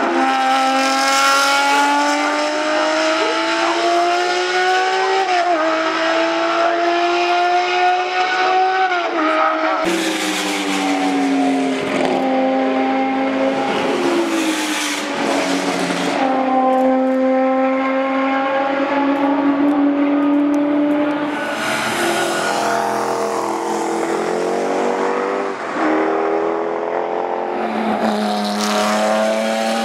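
BMW M1 Procar racing cars' M88/1 3.5-litre straight-six engines at high revs, several passes in turn. The pitch climbs and then drops back sharply at each upshift.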